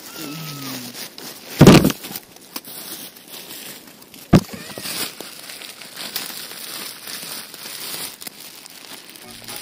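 Crinkling and rustling close to the microphone, with two loud bumps about one and a half and four seconds in: a ground-level camera being brushed and knocked by cats' legs and fur, then handled.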